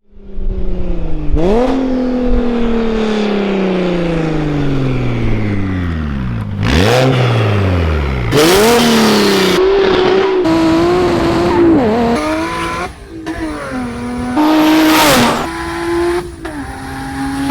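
Single-turbo BMW 335i inline-six running hard at speed. Its note falls in long sweeps for the first several seconds, then holds at steady pitches that step between gears, with several loud rushes of noise in between.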